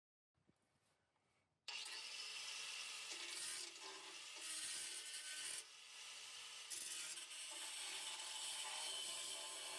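A power tool cutting through the rusted steel exhaust pipe, starting suddenly about a second and a half in and then running steadily, with a short dip about halfway through.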